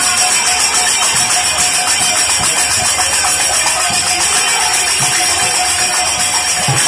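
Kirtan music without singing: brass hand cymbals (kartals) clash in a fast, even rhythm over drum strokes and a steady held note.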